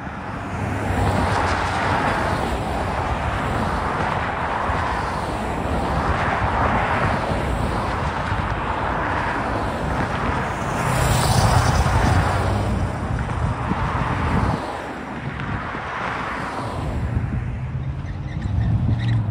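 Road traffic driving past and through the crossing: a steady rush of tyres and engines with slow swells, and a heavier vehicle's engine louder about ten seconds in. Wind buffets the microphone.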